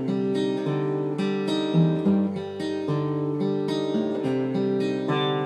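Acoustic guitar strummed in a steady rhythm, moving through chord changes every second or so.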